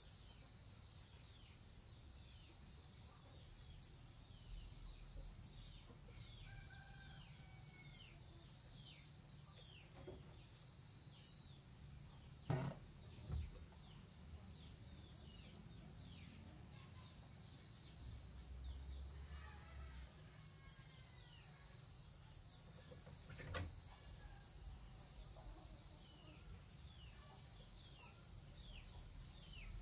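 Steady high insect drone with many short, falling bird chirps scattered throughout. Two brief knocks come close together about halfway through, and another near the three-quarter mark.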